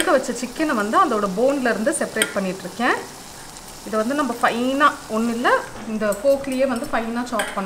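Two steel forks scraping and pulling apart boiled chicken in a stainless-steel bowl, the metal scrapes squeaking and rising and falling in pitch, with a short lull about three seconds in.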